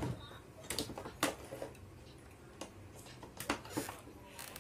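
Sharp plastic clicks and knocks from plugging a power plug into a power-strip socket and handling the cables around it. There are a few about a second in and two more about three and a half seconds in.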